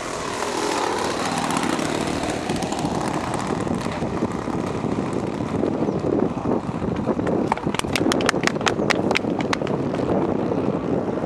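Twin propeller motors of a radio-controlled Canadair CL-415 model seaplane running as it flies low, the tone dipping and then rising again in the first seconds, then running on as the model skims across the water. About eight seconds in there is a quick run of about ten sharp clicks.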